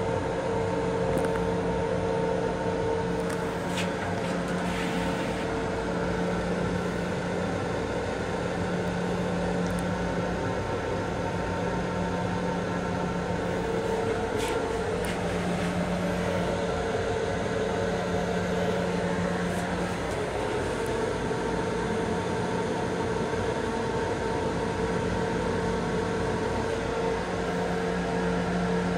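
Steady mechanical rumble and electrical hum of an M7 electric railcar in operation, heard inside its small restroom. A low hum tone drops out and comes back several times over a higher steady tone.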